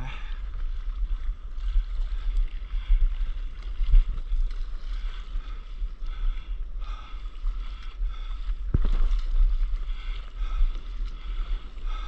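Water sloshing and lapping around a stand-up paddleboard on open sea, with a steady low rumble of wind on the action camera's microphone. Two short knocks, about four and nine seconds in.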